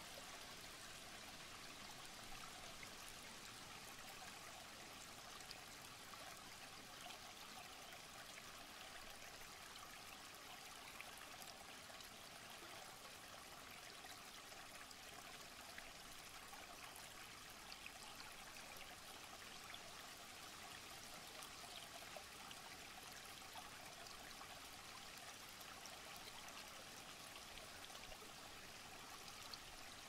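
Shallow rocky stream trickling over stones: a faint, steady rush of running water with light splashing.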